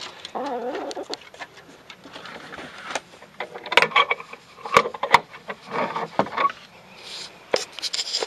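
Hens scratching and stepping about in dry leaves and straw: irregular crunching, rustling and ticking. A few short, soft clucks come in, one right at the start and more around the middle.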